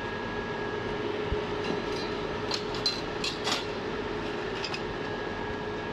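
Steady hum of a 3 kW handheld laser welding machine running idle, with a few short metallic clicks from the steel test plates being handled between about two and a half and three and a half seconds in.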